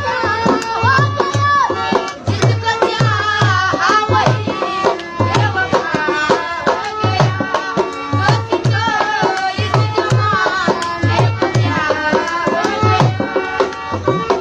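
Music with a deep drum stroke about once a second under a winding melody line that bends up and down in pitch.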